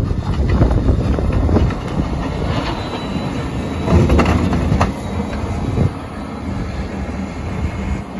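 Caterpillar 950M wheel loader's diesel engine running under load as it plows snow, its steel plow and wing blade scraping over the road with scattered knocks. It is loudest as it passes about four seconds in, then fades as it moves away.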